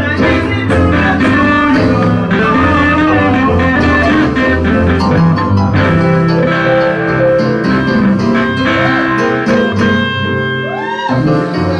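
Live church band music led by a blues-style guitar, with steady low bass notes and drum strokes underneath. Near the end the guitar plays a few sliding, bent notes.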